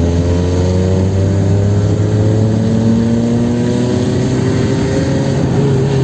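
Naturally aspirated Chevrolet Kadett 1.8 four-cylinder engine pulling hard in third gear, its pitch rising slowly and steadily as the car accelerates, easing off slightly near the end.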